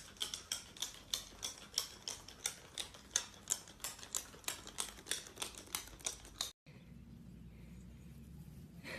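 Claws clicking on a hard tile floor as a small pet walks, a steady tapping about three times a second that cuts off abruptly about two-thirds of the way in. Faint steady background noise follows.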